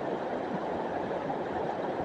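River water flowing, a steady rush without breaks.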